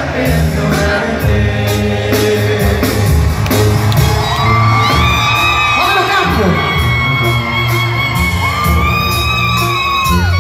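Live banda sinaloense brass band music: a tuba bass line under horns and singing, with long held high notes coming in about four and a half seconds in.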